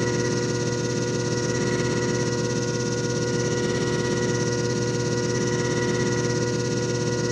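JFJ Easy Pro disc repair machine running: a steady motor hum with several constant tones, even in level throughout.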